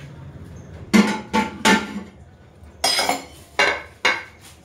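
Metal spoon knocked against the rim of a plastic mixing bowl to shake off food, six sharp taps in two groups of three.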